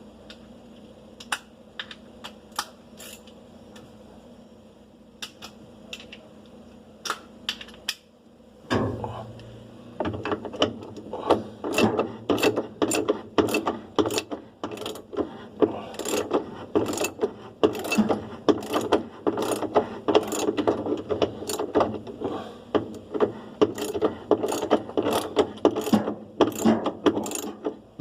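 Hand tool clicking as bolts are worked during the reassembly of a washing machine: scattered sharp clicks at first, then from about nine seconds in, quick irregular runs of louder clicks, several a second.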